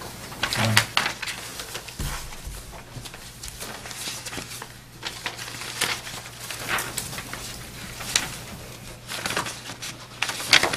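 Papers being leafed through and shuffled at a table with microphones: scattered soft rustles and light clicks over a faint steady low hum.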